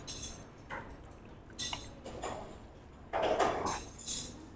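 Steel knife and fork scraping and clinking on a ceramic plate while cutting through pork ribs, in scattered short clatters. The loudest cluster comes a little after three seconds in.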